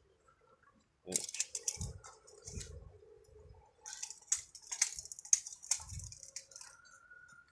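Scattered clicks and rustles with a few soft thuds: footsteps on gritty concrete and the camera being handled. There is no steady motor or fan sound.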